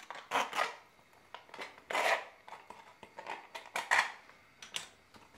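Plastic ketchup pouch crinkling in short, scattered rustles as it is handled and cut open with a kitchen knife.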